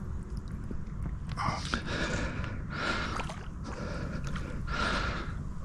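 A person breathing hard: five breaths of about half a second each, in a steady rhythm less than a second apart, over a steady low rumble.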